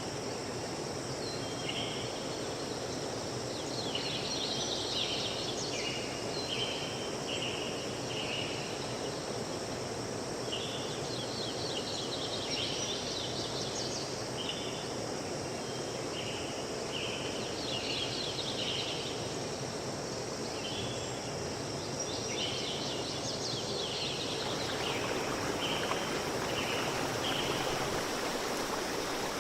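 Outdoor forest ambience: a steady rushing background noise with many short, high, repeated chirping trills coming in groups throughout. About three-quarters of the way through, the rushing background gets brighter.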